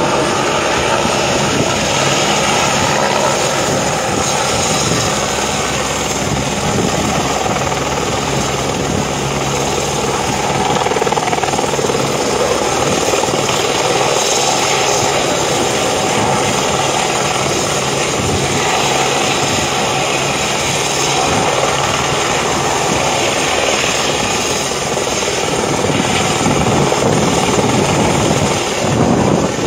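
Army helicopter hovering low over the water, its rotor and engine running loudly and steadily.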